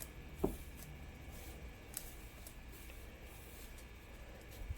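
Quiet room tone with a few faint, short clicks, one about half a second in and another around two seconds.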